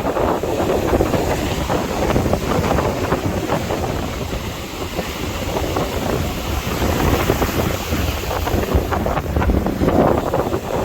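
Sea waves washing in, mixed with wind buffeting the microphone as a low rumble. The noise eases a little about halfway through and then builds again.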